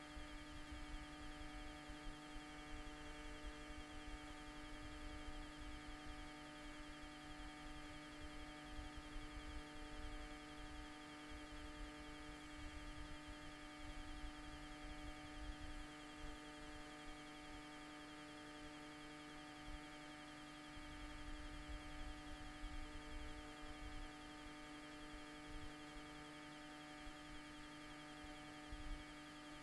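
Steady electrical hum made of several fixed tones, with a low, uneven rumble underneath that comes and goes.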